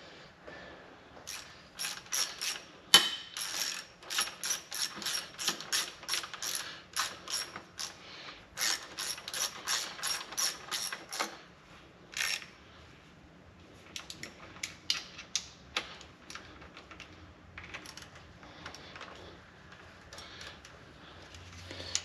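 Ratchet wrench clicking in quick runs as the aftercooler core's hold-down bolts are run down, then slower, scattered clicks in the second half.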